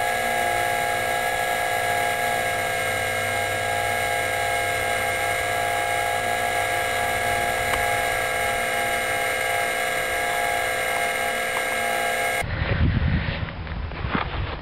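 The three brushless electric motors and propellers of a 72-inch balsa RC Junkers Ju 52/3m model run at a steady speed on the ground, giving an even, multi-tone whine. Near the end the sound cuts abruptly to gusty rumble with a few knocks.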